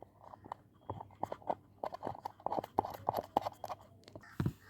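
Quick, irregular small clicks and taps of metal hardware being handled as a nut is put on the ceiling fan's mounting bolt by hand, with a slightly louder tap near the end.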